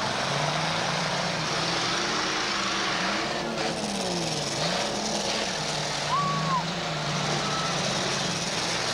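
Demolition derby car engines running and revving, their pitch rising and falling over a steady background roar, with a short high tone about six seconds in.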